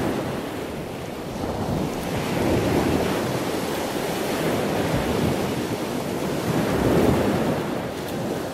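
Wind blowing across the microphone, a steady rushing noise that rises and falls every few seconds.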